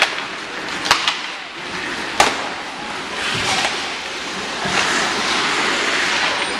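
Ice hockey play: a steady hiss of skates on the ice and rink noise, with sharp clacks, two close together about a second in and a louder one just after two seconds.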